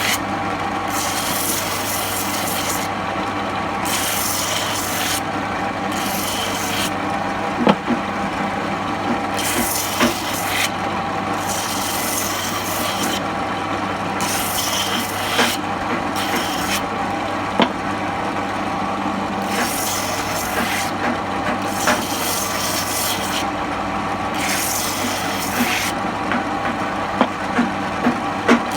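Electric grinding machine running steadily while its disc is pressed into wood again and again, rasping in strokes of a second or two with short breaks between. A few sharp knocks are heard along the way.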